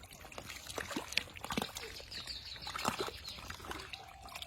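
Shallow water splashing and sloshing in irregular bursts as it is stirred by hand, with a short run of high chirps a little past halfway.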